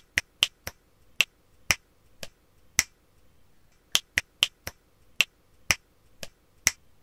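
A rhythmic pattern of short, sharp clicks, about sixteen in all, played in two matching phrases of eight with a pause of about a second between them.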